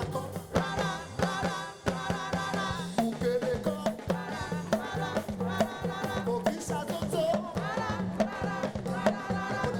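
Live African gospel praise music: drums and percussion keep a steady beat under a bass line, with singing voices over it.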